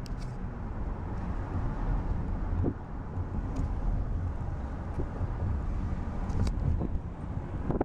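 Car driving along a road, heard from inside the cabin: a steady, deep rumble of road and wind noise, with a couple of faint ticks.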